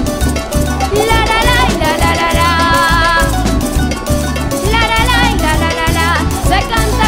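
Salsa music with a steady bass and percussion beat and a wavering melody line over it.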